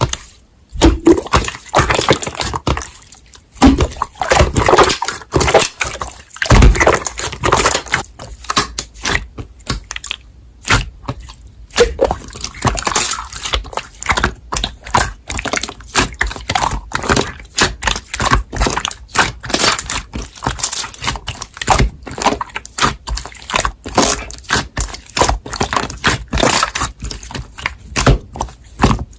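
Irregular clicks, knocks and clatter of objects being handled, with brief pauses between bursts.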